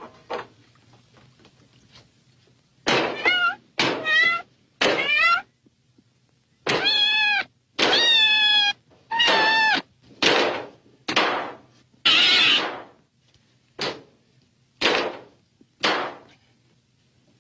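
A cat meowing over and over, about a dozen calls. The middle ones are long with a wavering pitch, and the last few are short.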